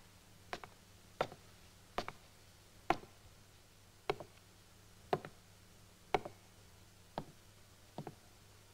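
Slow footsteps of boots on a stage floor, about one step a second. Each step is a sharp click, some of them doubled as heel and sole land.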